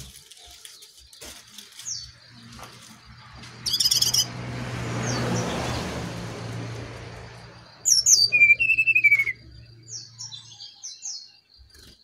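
Brown-chested jungle flycatcher (SRDC, sikatan rimba dada coklat) calling as a lure song: a burst of high notes about four seconds in, then loud high notes running into a falling whistle around eight seconds, and short chirps after. A thin steady high tone and a low hum run underneath, with a swelling rush of noise in the middle.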